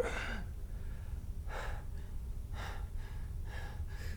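A man breathing in short, heavy gasps, four breaths about a second apart, over a low steady hum.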